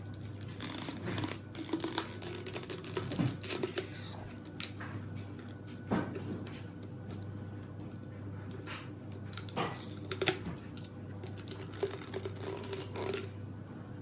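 Scattered clicks, taps and crinkles of small toy packaging being handled and opened, over a steady low hum.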